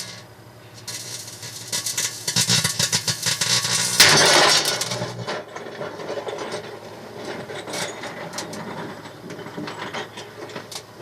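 Microwave oven running with a steady hum, then a sharp loud pop about four seconds in as a 5.56 tracer cartridge bursts inside it, splitting the case at the neck. The hum stops about a second later, leaving scattered faint clicks.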